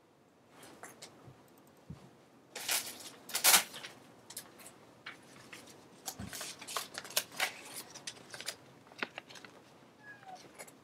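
Paper photo prints being rustled and shuffled by hand, in irregular bursts with a few small clicks, loudest about three seconds in.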